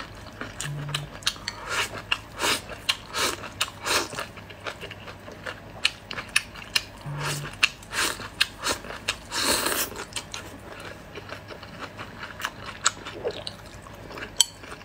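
Close-up eating sounds: a person chewing and biting rice and stir-fried vegetables, with many short clicks and smacks and chopsticks tapping a ceramic bowl. One longer, louder sound comes about halfway through.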